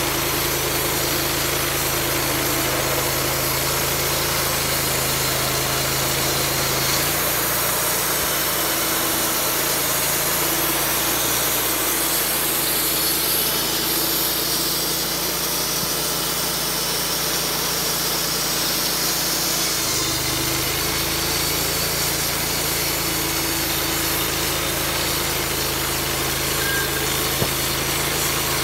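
Portable bandsaw sawmill's engine running steadily, its note changing for a stretch in the middle while the saw head travels along the log.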